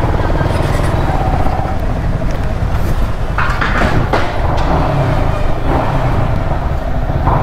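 Yamaha R15 V3's single-cylinder engine running as the motorcycle is ridden slowly, a steady low thrum throughout.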